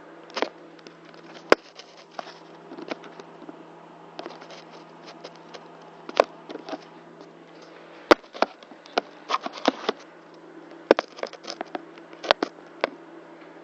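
Irregular clicks and clatters of kitchen utensils and cookware being handled, about a dozen sharp knocks among lighter taps, over a steady low hum.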